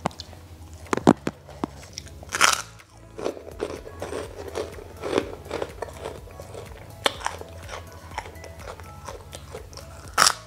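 Close-up eating: a person chews crispy fried chicken batter with scattered crunches. Near the end comes a loud crunch as a deep-fried kerupuk cracker is bitten.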